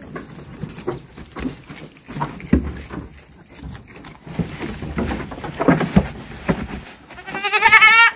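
A goat bleating once, a long quavering call near the end, after several seconds of irregular knocks and rustling.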